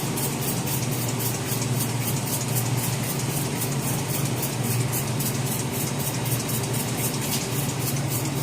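A machine running steadily: a constant low hum under an even hiss, with a fast, even ticking high up.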